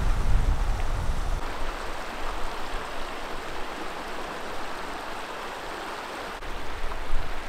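Shallow river running over a stony bed, a steady rushing hiss of water. A heavy low rumble sits under it for the first second or so and swells briefly again near the end.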